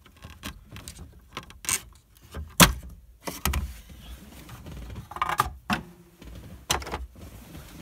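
Plastic center-dash trim panel (the Mazda Miata's 'tombstone' bezel) being pulled out by hand: its retaining clips let go with sharp clicks, the loudest about two and a half seconds in, among plastic knocks and rattles as the panel is worked free and handled.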